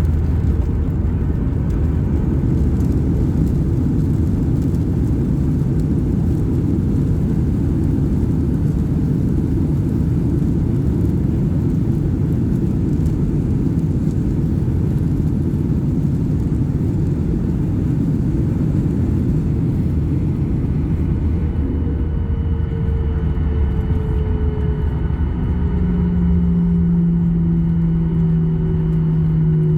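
Boeing 737-800 cabin noise: a steady rumble of airflow and CFM56 jet engines. About two-thirds of the way through, the hiss thins and steady engine tones come in, drifting slowly down in pitch as the thrust changes.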